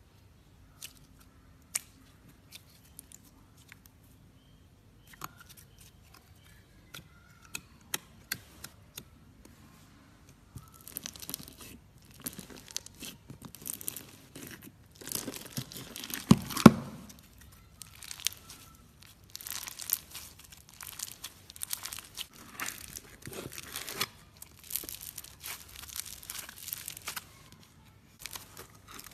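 Fingers squishing and pressing jelly slime, water beads and foam-bead slime (floam). At first there are only a few sparse clicks and squelches; from about ten seconds in comes dense crackling and crunching, loudest about halfway through.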